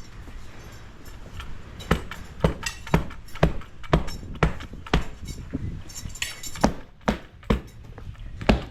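Concrete stamping mats being tamped down into wet concrete: sharp knocks at a steady pace of about two a second, starting about two seconds in.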